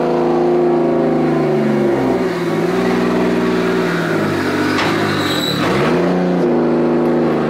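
Straight-piped 2JZ-GTE VVTi engine in a Nissan 240SX S14 drift car running loudly in a shop. It starts suddenly and runs with the revs dipping and coming back up twice.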